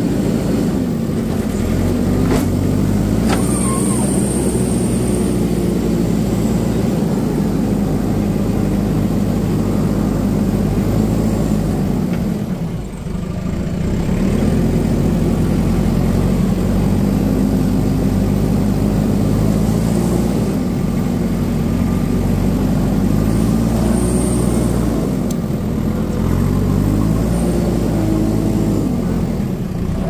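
JCB 3DX backhoe loader's diesel engine running loud and close while the machine works, its revs rising and falling, with a brief easing of the engine about thirteen seconds in.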